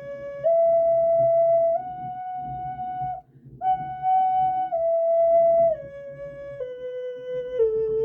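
Bird-shaped pendant ocarina playing a minor pentatonic scale in slow held notes, stepping up to the top note, stopping briefly for breath about three seconds in, then stepping back down note by note.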